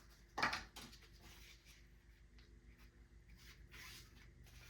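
Belt packaging being handled and opened: one short, loud rustle about half a second in, then faint scattered rustling and scraping.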